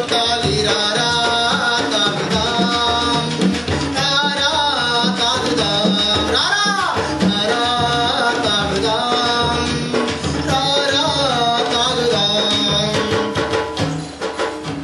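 Music: a song with singing over drums and percussion, playing at a steady, loud level.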